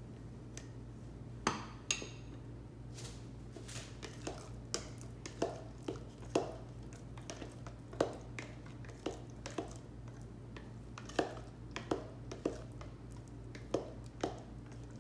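Spatula knocking and scraping against the sides of a tall blender beaker while stirring thick homemade mayonnaise, in irregular taps about once or twice a second. A couple of sharper clacks near the start as a handheld lemon squeezer is used and set down.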